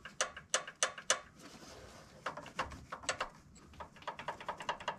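Light metal clicks and taps in irregular clusters: hand tools and the rocker arms being worked on the exposed valve gear of an air-cooled VW engine during a valve adjustment.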